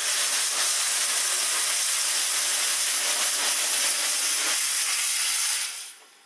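Steady loud hiss of steam from the open firebox of Milwaukee Road 261 while its coal stoker runs, the stoker's steam jets blowing coal across the fire. The hiss dies away near the end as the stoker is shut off.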